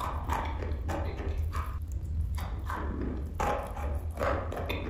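Close-up chewing of dry chalk: a string of crisp, irregular crunches, several a second, as the chalk is bitten and ground between the teeth.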